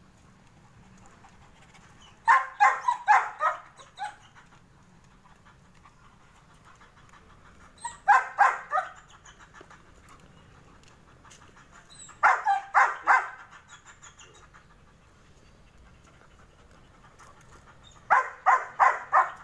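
German Shepherd dog barking in four short bursts of four or five quick barks each, a few seconds apart.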